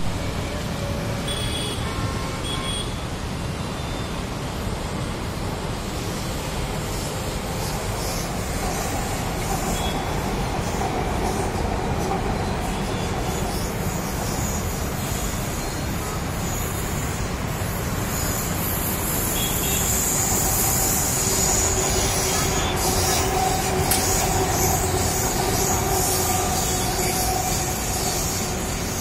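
Hyderabad Metro electric train running along the elevated viaduct, its whine and wheel squeal swelling in the middle and again in the last third, over the steady rush of road traffic below.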